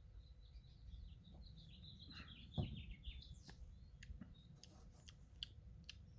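Faint birds chirping, a run of short high chirps, with a soft thump about two and a half seconds in and a few light clicks.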